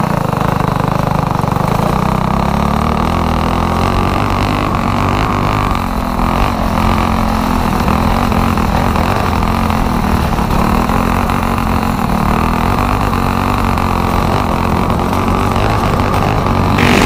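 Stage 3 modified Predator 212 single-cylinder four-stroke engine running hard on a go-kart, heard close up from a kart-mounted camera. Its note rises and falls a little with the throttle around the lap.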